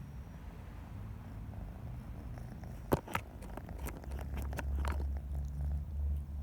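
Domestic cat purring: a steady low rumble that gets louder in the second half, with a couple of sharp clicks about three seconds in.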